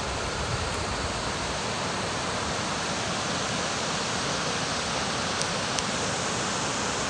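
Mountain river rushing over rocks in a steady, unbroken wash of whitewater noise.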